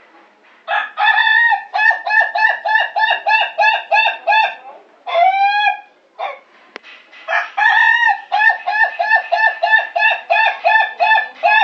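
Ayam ketawa (Indonesian laughing chicken) rooster crowing twice, each crow a longer opening note followed by a rapid run of short notes, about four a second, that sounds like laughter. The first crow ends in one drawn-out note; the second starts about halfway through and runs on.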